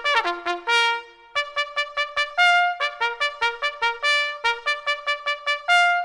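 Background music: a fast tune on a brass instrument, mostly short, quickly repeated notes with a few longer held ones, and a brief pause about a second in.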